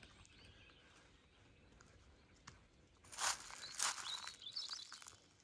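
Two footsteps crunching on gravel about half a second apart, a little past halfway, then faint bird chirps over a quiet rural background.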